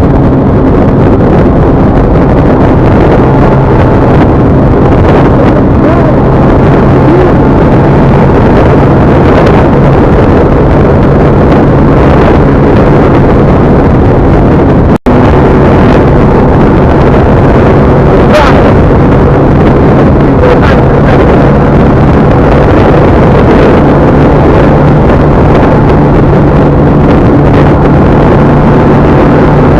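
Loud, steady vehicle running noise, an engine hum under wind buffeting the microphone, with a brief dropout about halfway through.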